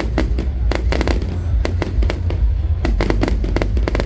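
Fireworks going off in a rapid series of sharp bangs and crackles, several a second in clusters, over a steady low rumble.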